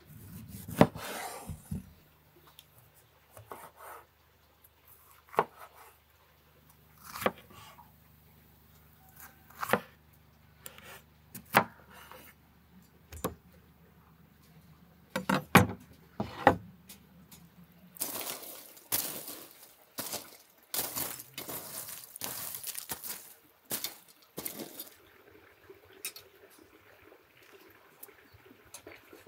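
Cleaver cutting through tomatoes on a wooden board: single sharp knocks about every two seconds, followed past the middle by several seconds of denser clattering and rustling as food is handled.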